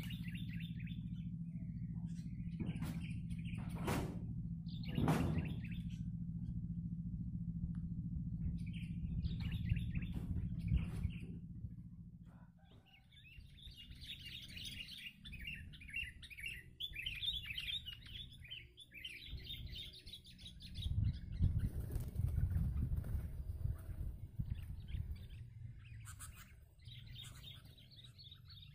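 Sooty-headed bulbuls (kutilang) chirping in quick bursts of bubbly notes. A low rumble and two sharp knocks sit under them in the first half.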